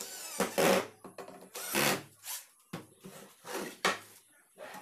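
21 V cordless drill-driver running in several short bursts, driving screws into plywood panels.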